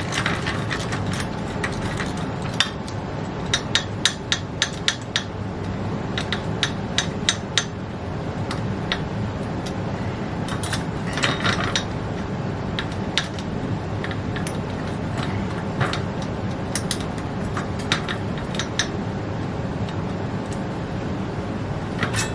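Socket ratchet clicking in short runs as a 15 mm axle nut on a bicycle's front wheel is loosened, with scattered clinks of metal tools.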